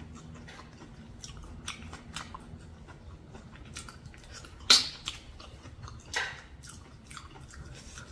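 Close-up eating sounds: a person biting and chewing, with small wet clicks and crackles and two louder sharp crunches, the first about four and a half seconds in, the second about a second and a half later.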